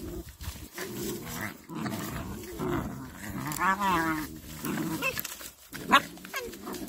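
Puppies play-fighting, growling low and rough throughout, with a whining yelp about halfway through and a sharp yip near the end.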